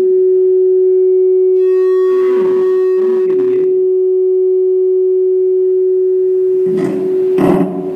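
A steady, loud single-pitched hum from the sound system, held throughout. A faint voice comes through under it about two seconds in and again near the end.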